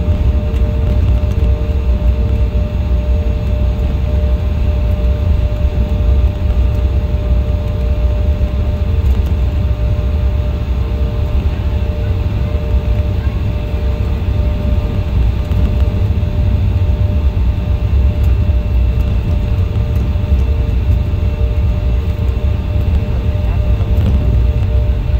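Steady cabin noise of an Embraer E175 airliner with its GE CF34 turbofan engines running, heard from inside the cabin: a deep, even rumble with a steady hum and a faint, regularly pulsing tone above it.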